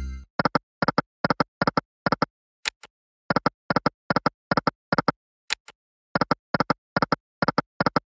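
Online video slot's reel sound effects: short electronic blips in quick groups of two or three, about two groups a second, while the reels spin and stop.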